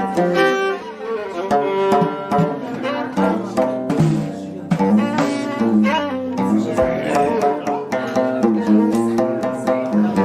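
Traditional Amazigh music played instrumentally: a bowed string melody over plucked strings, with hand percussion keeping a steady beat.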